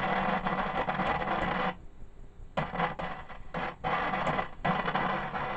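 Ekco MPT333 transistor radio's loudspeaker giving bursts of hiss and crackle that cut in and out abruptly: one long burst, then several short ones as the circuit board is prodded. This is an intermittent fault, and dry joints on the board are the first suspect.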